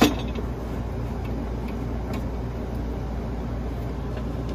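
RV folding metal entry steps, now wrapped in carpet step rugs, set down with a single clunk and a short ring. A steady low hum runs underneath.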